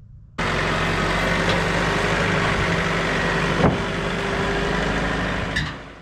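A vehicle engine running steadily, cutting in suddenly about half a second in, with one sharp knock partway through, then fading out near the end.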